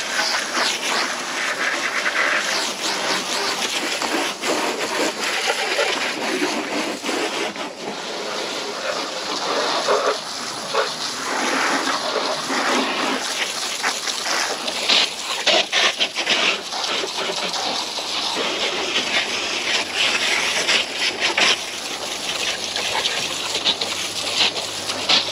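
Water spraying and splashing over a car's engine bay as cleaning chemicals are rinsed off, an uneven spattering hiss that rises and falls as the spray moves.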